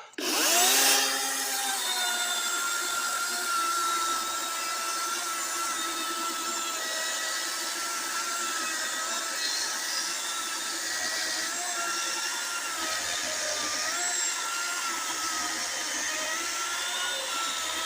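DeWalt 60V 16-inch cordless electric chainsaw running under load as it cuts through a softwood log: a steady motor whine whose pitch wavers and dips slightly as the chain bites into the wood.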